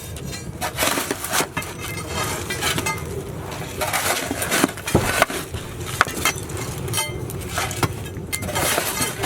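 Irregular knocks and clinks, about a dozen scattered strikes, some ringing briefly, over a steady low background hum.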